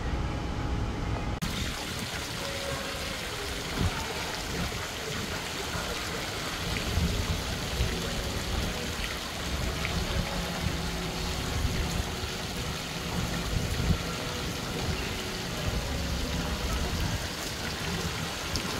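Water spraying and splashing from a splash-pad fountain, a steady hiss that starts abruptly about a second and a half in, with an uneven low rumble underneath.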